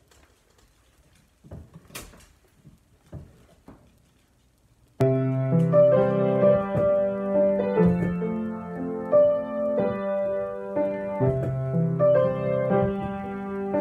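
A few faint clicks, then about five seconds in, piano music starts suddenly and plays on.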